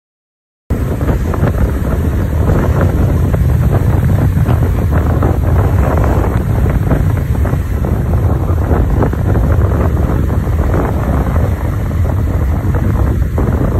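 Wind from a moving car's open window buffeting the microphone: a loud, steady rumbling rush that starts abruptly under a second in.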